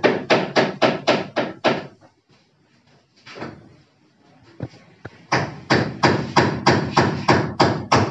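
Rapid, very regular hammer blows, about four a second, each with a short ring. There are two runs with a pause of about three seconds between them, in which only a couple of single knocks are heard.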